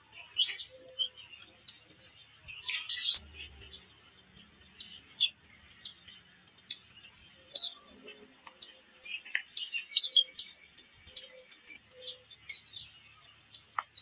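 Eaglet nestlings giving scattered high, thin chirps, some rising or falling in pitch. A single dull knock comes about three seconds in.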